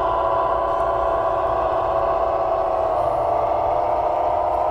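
The electric motors of an RC model tractor give a steady whine, its pitch dipping slightly about three seconds in and rising again near the end.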